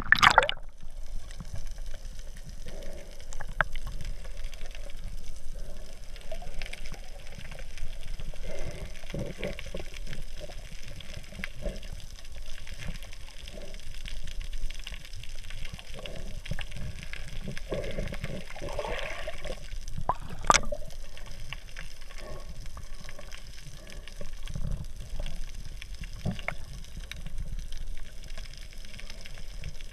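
Sea water heard through a camera just below the surface: uneven sloshing and gurgling with a splash as it goes under at the start, and a single sharp knock about twenty seconds in.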